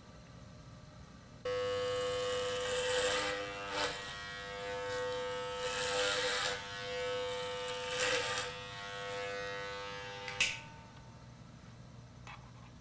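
Electric hair clippers switched on about a second and a half in and buzzing steadily, the sound thickening with a hiss several times as they run through hair, then switched off with a click near the end.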